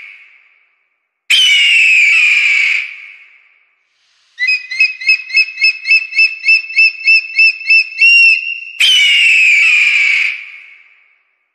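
Shrill, slightly falling eagle screams, two of them about 1.5 s each, with a run of about a dozen quick high whistled notes between them. The calls are separated by gaps of dead silence.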